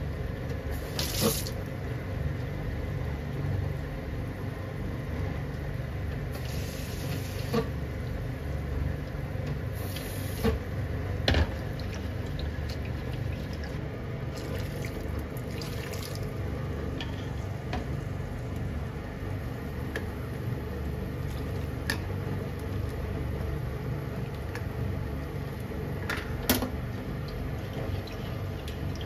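Liquid bubbling at a simmer in a frying pan on the stove, a steady low rumbling hiss, with several sharp clinks of a utensil against the pan.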